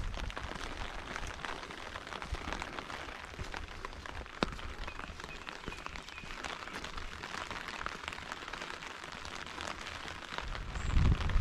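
Steady rain falling, an even hiss scattered with many small drop ticks close to the microphone, one sharper tick about halfway through. Near the end a loud low rumbling comes in.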